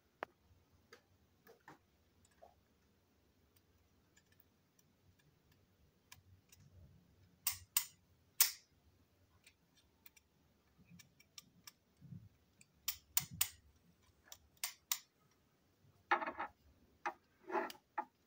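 Small hard plastic model-train parts being handled and pulled apart: scattered sharp clicks and taps, with two short rattles near the end.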